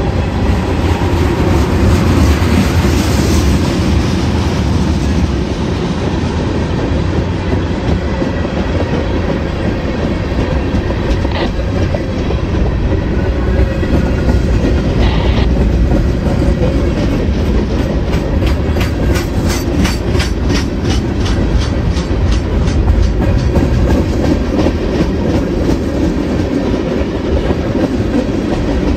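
Mixed freight train of covered hoppers and tank cars rolling past close by: a loud, steady rumble of steel wheels on rail with clickety-clack from the wheelsets crossing rail joints, and a quicker run of clicks about two-thirds of the way through.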